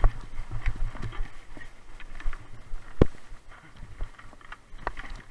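Mountain bike rolling down a rocky trail: the bike rattling and tyres crunching over stones, with irregular sharp knocks as it hits rocks, the loudest about three seconds in.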